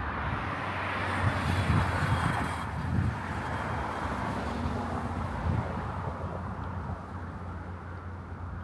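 A passing vehicle's rushing noise that slowly fades away, with wind buffeting the microphone in low rumbles over the first few seconds.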